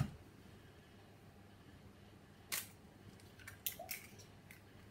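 A few short, sharp clicks and taps as an egg is cracked against a glass measuring jug and its shell pulled apart, the loudest about two and a half and three and a half seconds in, over quiet room tone.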